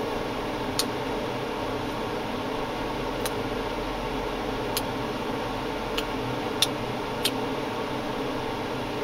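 Steady background hum like a fan, with about six short, sharp clicks spread through it from a person chewing sour sweets.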